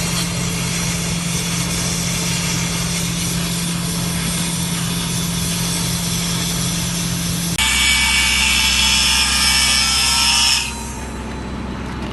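Power tools running. A steady motor drone with hiss gives way, about eight seconds in, to a louder, high-pitched grinding that stops sharply near the end, leaving a quieter steady drone.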